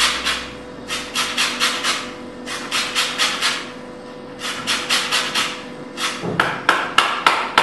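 A lime rubbed on the fine side of a metal box grater for zest: bursts of quick rasping strokes, then a few sharp knocks near the end.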